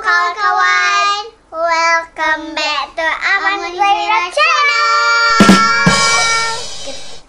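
Young girls singing a short chanted intro song, ending on a long held note. About five and a half seconds in, a drum hit with a ringing crash comes under the held note.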